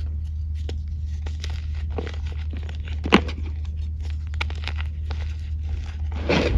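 Dry, dusty clay chunks being snapped and crumbled by hand, with scattered small cracks and crunches. A sharp snap comes about three seconds in, and a longer crumbling rush near the end.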